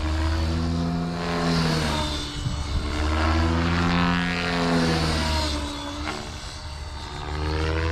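Blade Fusion 550 electric RC helicopter in flight: its main rotor and motor buzz, rising and falling in pitch and loudness several times as it maneuvers.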